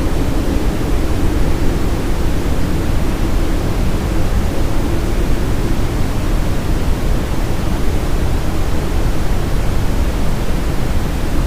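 Steady brown noise with reverb: an even, unbroken hiss weighted toward the low end, with a faint low hum that fades out about halfway through.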